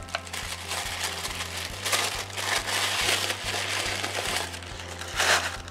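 Tissue paper crinkling and rustling as a wrapped item is unwrapped by hand, louder about two to three seconds in and again near the end.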